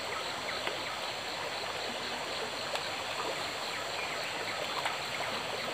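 Small forest stream running steadily, with scattered faint drips and trickles.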